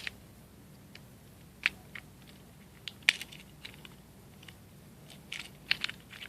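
Scattered sharp plastic clicks and cracks, with a quick cluster near the end, as a fidget cube's plastic shell is pried and forced apart.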